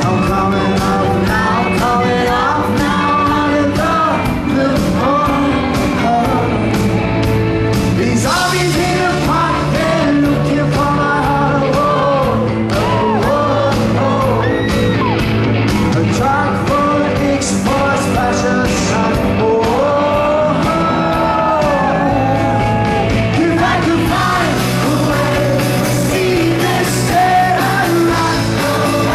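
Indie rock band playing live, the lead singer's voice carrying the melody over a steady bass line and drums with crashing cymbals, as heard in a concert hall recording.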